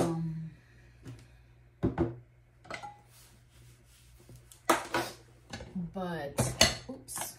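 Kitchen utensils being dried with a cloth and set down on a hard tabletop: several sharp clacks of stainless steel and plastic tools, a second or two apart, the loudest at the very start.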